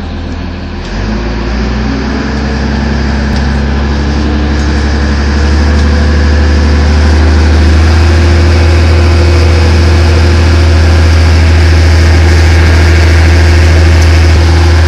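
Engine of a small canopied harbour launch running under way: a steady low hum that grows louder about a second in and again around five to six seconds in, then holds steady.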